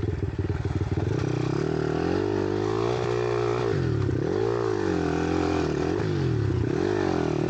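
Monkey bike's small single-cylinder engine being ridden hard off-road, revving up and down so that its pitch rises and falls several times, with sharp dips about four and about six and a half seconds in.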